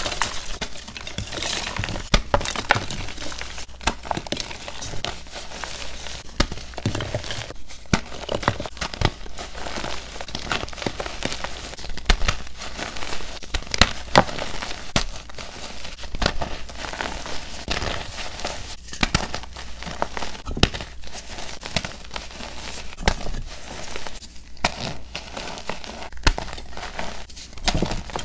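Reformed gym chalk pieces crunching and crumbling as hands squeeze and crush them into loose powder: a dense, irregular run of crisp crackles and crunches.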